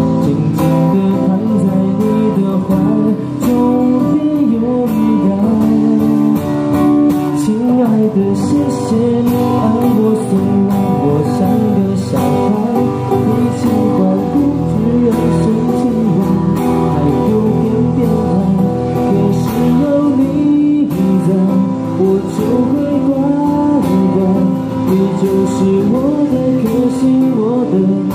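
Acoustic guitar strummed as accompaniment to a male voice singing a Mandarin pop song into a microphone, as a live cover.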